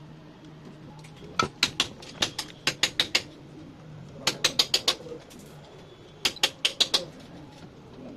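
Quick runs of sharp clicks, four to eight in each run at about six a second, coming three times with short pauses between.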